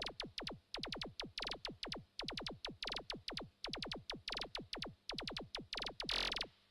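Electronic synthesizer music: a rapid, rhythmic run of short synthesized zaps, each falling steeply in pitch, with a longer falling sweep near the end.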